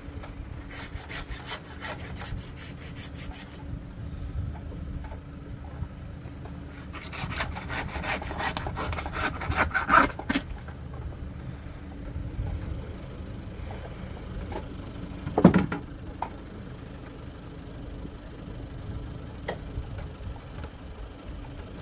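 Saw cutting through a hanging beef carcass in two bouts of quick, rhythmic strokes. A single sharp knock comes about fifteen seconds in. A faint engine idles steadily underneath.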